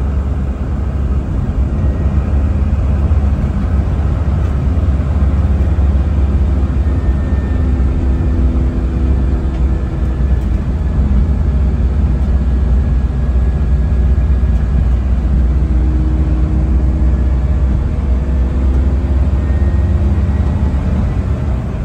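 Daihatsu Hijet S110P kei truck's small three-cylinder engine and tyres heard from inside the cab while cruising at a steady 65–70 km/h: a constant low drone with a faint whine above it.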